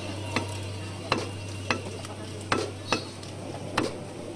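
Butcher's cleaver chopping raw beef against a wooden stump block, six separate chops at an uneven pace.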